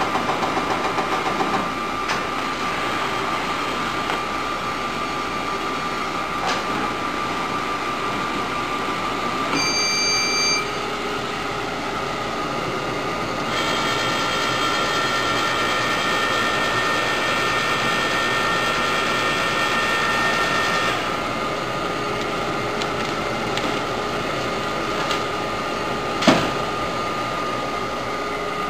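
Microplex F60 continuous-form printer running with a steady mechanical hum and whine. A short beep sounds about ten seconds in. A higher multi-tone whine joins for several seconds about halfway through, while the paper stacker is being worked, and a single sharp click comes near the end.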